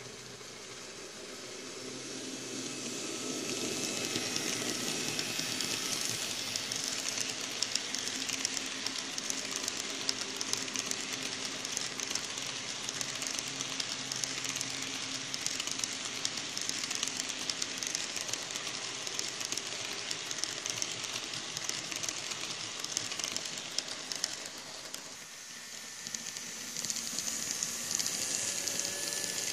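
N-scale model passenger trains rolling past on the rails: a steady hiss of metal wheels on track with fine rapid clicking. A low steady motor hum runs under it through the first half. It fades briefly, then swells again near the end as another train passes close.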